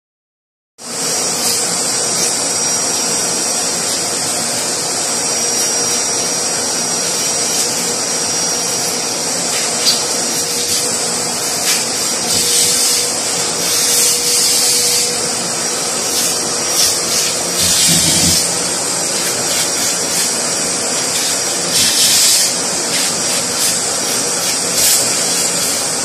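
Vacuum cleaner running steadily, starting about a second in. Its high hiss surges briefly several times as the airflow at the hose changes.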